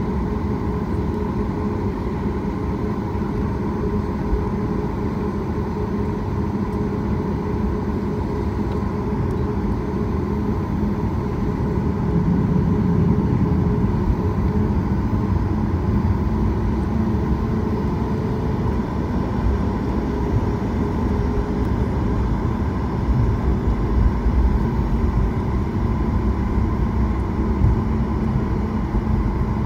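Cabin noise of a Boeing 737 MAX rolling on the ground: the steady hum of its CFM LEAP-1B engines with a low rumble from the wheels. It gets louder about twelve seconds in, and the low rumble is stronger in the last several seconds.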